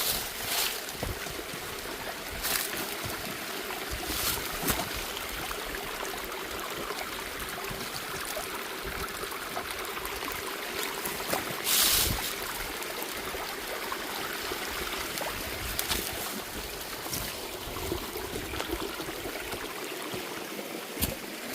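Steady rushing hiss of strong wind blowing snow, with a few short louder rushes, the loudest about twelve seconds in.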